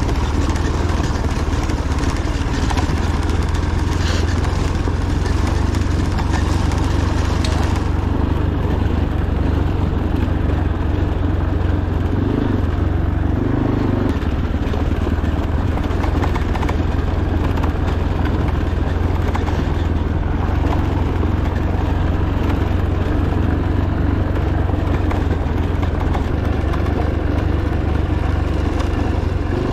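Fantic Caballero 500 Rally's single-cylinder four-stroke engine running steadily under way on a gravel track, with a brief change in its note a little before the middle. A hiss of higher noise over the engine drops away about eight seconds in.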